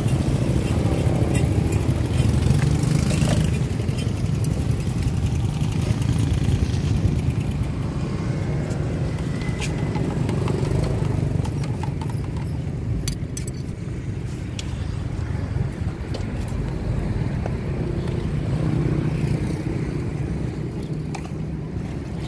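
Steady low rumble of passing road traffic, with motorbike engines swelling a couple of seconds in and again near the end, and scattered small clicks.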